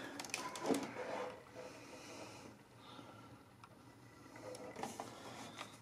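Faint plastic clicks and taps as fingers handle the open cassette compartment and tape mechanism of an RCA Small Wonder VHS-C camcorder, with a person's breathing.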